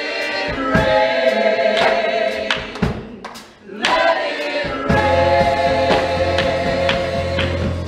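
Gospel choir singing held notes, breaking off briefly just past the middle before coming back in. A low, steady bass note joins about two-thirds of the way through.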